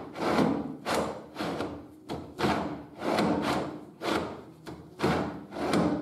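Steel sawmill-model table pushed back and forth on its guide blocks: a rough metal scraping and rubbing in repeated strokes, about one every two-thirds of a second. The travel is rough because the parts are only loosely aligned on a makeshift base.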